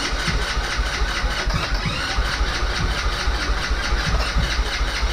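Electric starter cranking the Vader 125 Grom clone's single-cylinder 125 cc engine with the choke on, a fast, even chugging that does not catch. The engine fails to fire, which the builders put down to no fuel reaching the carburetor.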